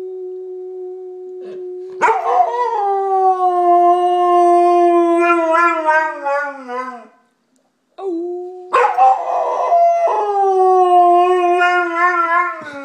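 Golden retriever howling: two long howls, each opening on a softer steady note before turning loud, wavering near the end and sliding down in pitch as it dies away.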